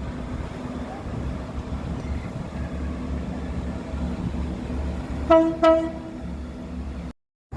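Train horn giving two short toots of the same pitch in quick succession about five seconds in, over the steady low rumble of a train.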